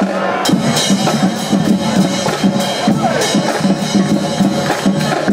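Drums and percussion, as from a school band, playing a steady rhythmic beat.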